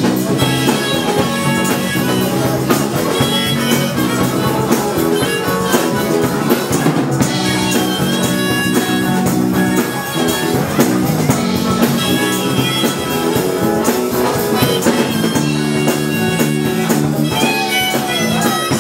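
Live dance band playing an instrumental passage: long held lead notes over guitar and a steady drum beat.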